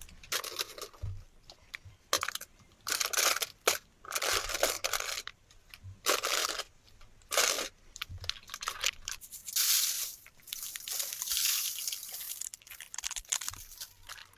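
Dry leaves, twigs and forest litter crunching and rustling in irregular bursts, each lasting up to about a second.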